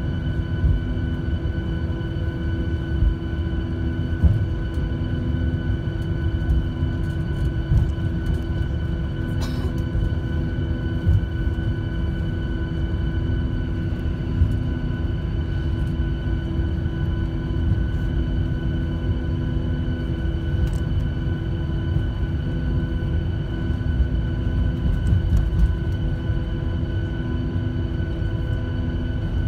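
Cabin noise of a Boeing 737-800 taxiing on the ground. Its CFM56 engines run at idle, giving a steady hum with several steady tones over a low rolling rumble. Small knocks and bumps come every few seconds.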